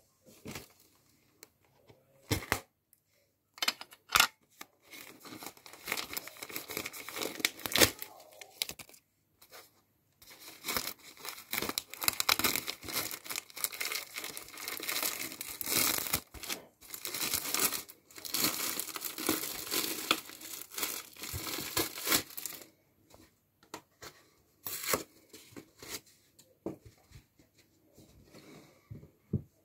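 Packaging being torn off a new foam car sponge and crumpled, in crackly bursts with sharp clicks. The sounds are scattered at first, come thick and continuous through the middle for about twelve seconds, then thin out again.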